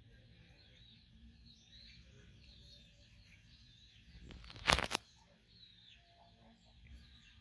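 Small birds chirping faintly and repeatedly in the background, with one brief loud rustling burst of noise about four and a half seconds in.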